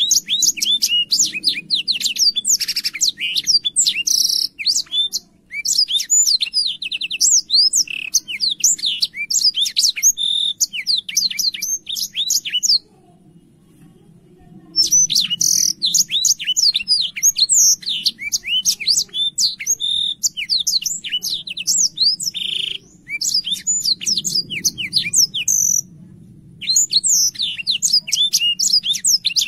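Black-throated canary singing a long, fast run of chirps and trills, breaking off for about two seconds halfway through and briefly again near the end.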